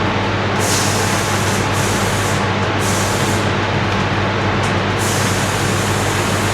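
Compressed-air spray gun hissing in five short passes, laying a top coat of paint, over a steady machine drone with a low hum. The hiss cuts in and out with each trigger pull; the longest pass comes near the end.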